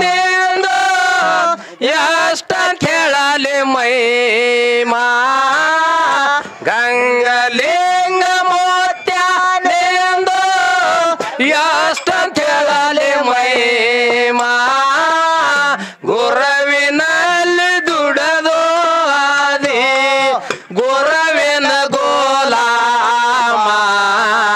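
A man sings a dollina pada, a North Karnataka folk song, solo into a microphone. His phrases are long, with notes held and bent, and brief breaths between them.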